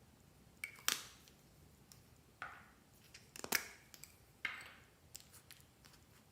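Slime being worked by hand: a series of sharp wet pops and crackles, about five louder ones with lighter clicks between them.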